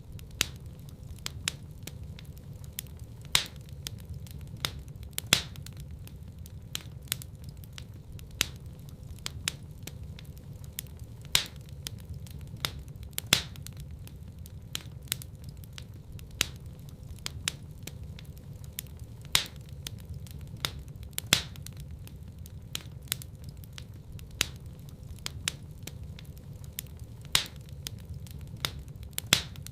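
Wood fire crackling in a fireplace: irregular sharp pops over a steady low rumble of the flames, a few pops louder than the rest.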